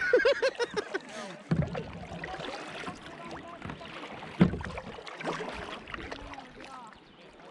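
River water splashing and gurgling against the bow of a Pelican kayak as it moves through choppy current. A burst of splashing comes at the start, and two dull thumps follow, one about a second and a half in and a louder one near the middle.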